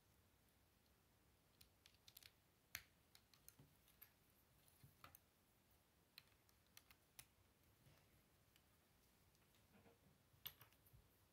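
Plastic Lego bricks being handled and pressed together: scattered faint clicks and snaps, with the sharpest ones a little under a third of the way in and near the end.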